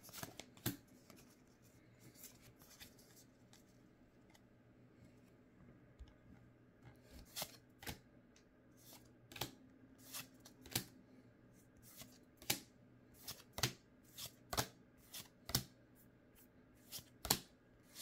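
Pokémon trading cards being flicked one at a time from the back of a freshly opened booster pack to the front, each move giving a short, sharp card snap. A couple of snaps come early, then from about six seconds in they follow roughly once or twice a second.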